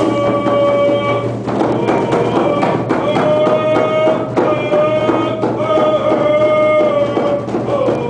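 Live ceremonial song: held notes that shift and slide in pitch every second or so, over a steady drumbeat, ringing in a large wooden plankhouse.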